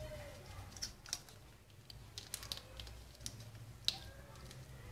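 Faint, irregular small clicks and taps, scattered through with one sharper click near the end.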